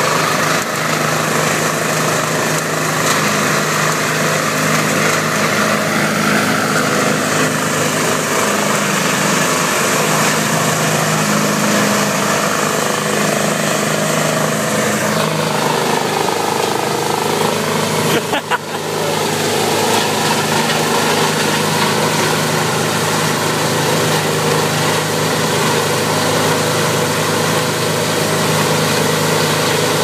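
Dynamic CH465 wood chipper running steadily under load, chipping green leafy branches fed into its infeed and blowing the chips out of its discharge chute.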